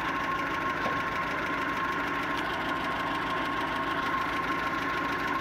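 GAZ-21 Volga's four-cylinder engine idling unevenly, running on three cylinders because one cylinder is misfiring. A steady thin whine runs along with it.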